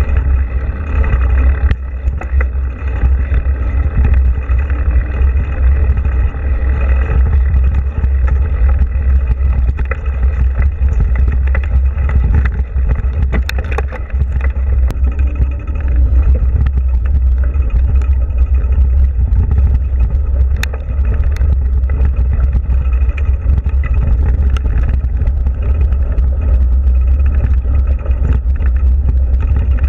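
Ride noise from a moving mountain bike heard through a bike- or body-mounted action camera: a loud, steady low rumble of wind and vibration over tyres rolling on a dirt trail, with a few sharp clicks in the middle.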